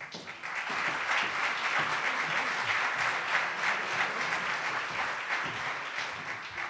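Audience applauding. It swells up at once and tapers off near the end.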